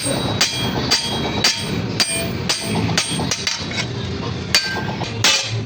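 Hand hammer striking hot steel on an anvil about twice a second, each blow with a short metallic ring, while a grass-cutter blade is being forged. A steady low rumble runs underneath.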